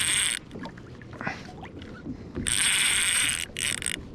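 Daiwa Saltiga fishing reel buzzing in bursts under a hooked fish on the line: one burst cuts off just after the start, another of about a second comes past the middle, and a shorter one follows near the end.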